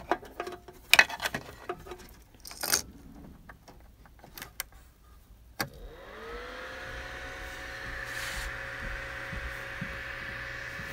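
Clicks and rattles of a DC barrel plug and cable being pushed into a delta 3D printer that has no power switch; about five and a half seconds in a click, then the printer's cooling fan spins up with a rising whine and settles into a steady, loud hum.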